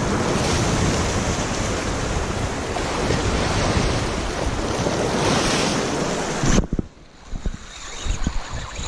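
Wind rushing over the microphone along with waves washing at the shoreline, a steady noise that drops away suddenly near the end, leaving quieter water and a few light knocks.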